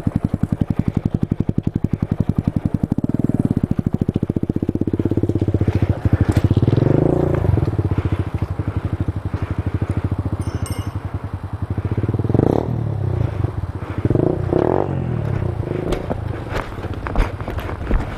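Supermoto motorcycle engine running at a quick, even pulse, revving up and back down about six to eight seconds in. Irregular scraping and clattering follow in the last few seconds.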